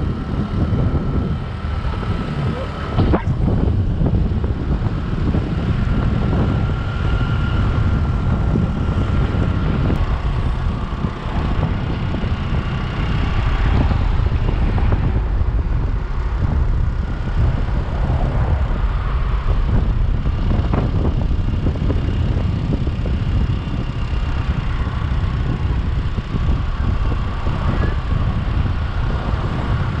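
Motorbike riding along a road: wind rumble on the microphone over the bike's engine running steadily.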